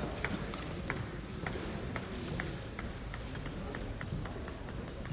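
Table tennis ball bouncing to rest on a hard surface: a run of sharp light ticks that come faster and faster as the bounces shorten.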